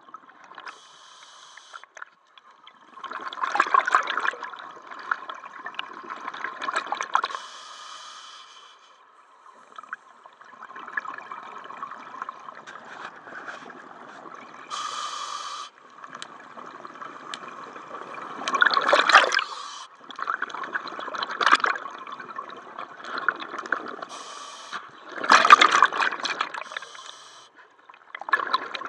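Scuba diver breathing through a regulator underwater. Exhaled bubbles gurgle out in loud bursts every several seconds, with quieter hiss between them.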